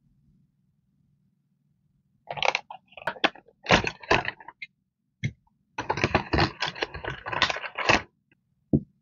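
Rolls of washi tape and a plastic tape dispenser being handled on a table: a few knocks and rustles, then a quick run of clattering clicks for about two seconds, and one last knock near the end.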